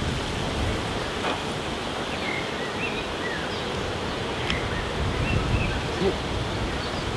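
Honeybees buzzing around an open hive, mixed with wind rumbling on the microphone, with a few faint high chirps.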